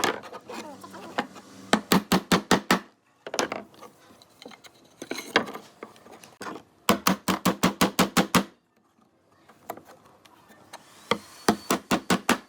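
Rapid runs of hammer blows on wood, about seven strikes a second, each run lasting about a second, with short pauses between them.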